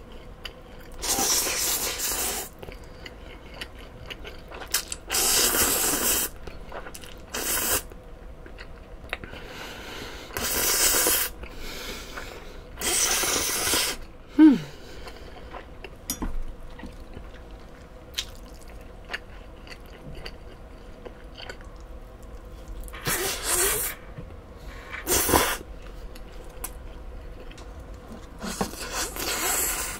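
A person slurping spicy cold bibim noodles (Ottogi Jin Bibim-myeon) and their sauce, with about eight loud slurps of a second or so spread through, and quieter chewing in between. About halfway there is one short falling pitched sound.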